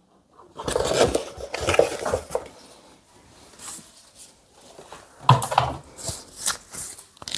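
Cardboard box and packaging being handled and rummaged through: irregular rustling and light knocks in two busy stretches with a quieter pause between.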